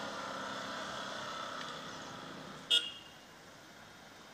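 Road traffic noise with held vehicle-horn tones, then one short, sharp horn beep a little before the end, after which the traffic quiets to a low hiss.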